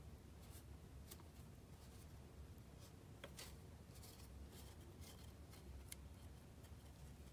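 Near silence: room tone with a low steady hum and a few faint, scattered ticks of paper pieces being handled.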